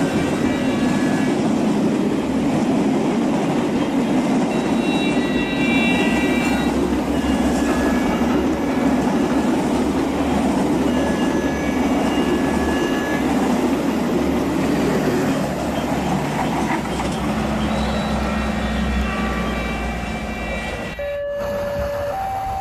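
A train running: a steady rumble with short high squeals scattered through it. Near the end it cuts off suddenly and gives way to an alternating two-note tone.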